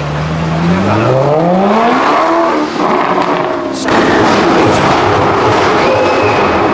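Mercedes-Benz SLS AMG's V8 with an aftermarket exhaust, its note rising steadily as it accelerates for about two seconds. About four seconds in a sudden, louder, rougher blast of engine and exhaust sound takes over and carries on.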